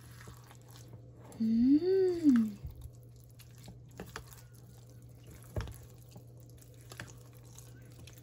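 Silicone spatula stirring a thick, wet pistachio fluff mixture in a stainless steel bowl: soft squishy sounds, with a few sharp taps of the spatula against the bowl in the second half. About a second and a half in, a loud wordless vocal hum, like an appreciative 'mmm', rises and falls in pitch over about a second. A steady low hum runs underneath.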